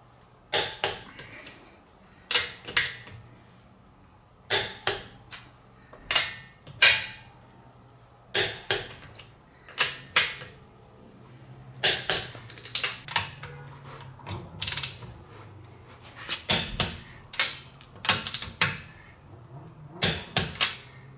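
Half-inch click-type torque wrench clicking as each lug nut reaches its set torque of 85 ft-lb: a sharp click or pair of clicks every second or two, some with a brief metallic ring.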